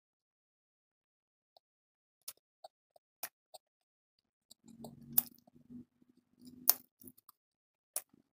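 Mouthful of dry cornstarch being chewed: scattered sharp clicks and crunches, the two loudest about five and six and a half seconds in. A low closed-mouth hum rises from the throat around those two crunches.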